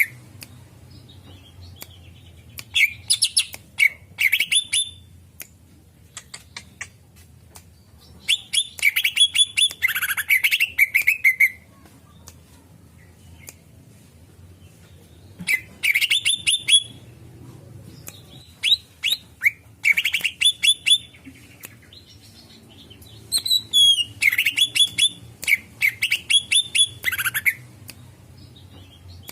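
Cucak ijo (green leafbird) singing: bouts a few seconds long of rapid, high chirping notes, five of them with short pauses between, and scattered sharp clicks. This is a lure recording meant to draw other birds and get them singing.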